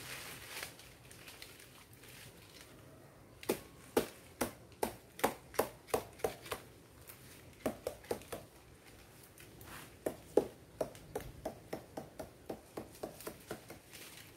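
Quick, regular chopping knocks at a sugar palm trunk as the ijuk fibre is hacked loose, about two or three strokes a second. They come in two runs with a short pause between them.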